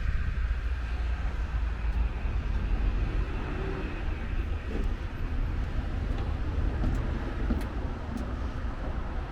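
Steady rumble of a jet airliner's engines, with a low buffeting of wind on the microphone.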